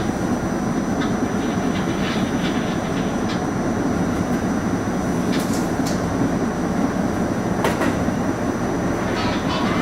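R68 subway car running along the track: a steady rumble of wheels on rail, with a few sharp clacks, the clearest about halfway through and again near three-quarters of the way.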